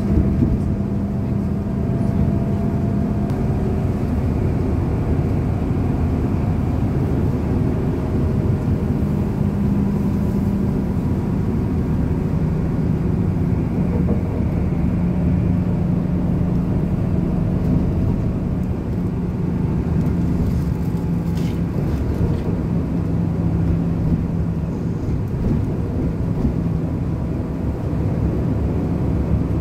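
Cabin noise of a Volgabus 4298.G4 city bus under way: the engine and running gear make a steady low drone with a constant hum that wavers slightly, plus a few faint light rattles.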